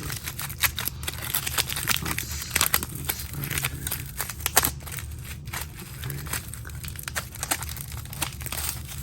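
Hands rummaging through a box of items: irregular crinkling of plastic packaging with light clicks and knocks as things are moved about, over a steady low hum.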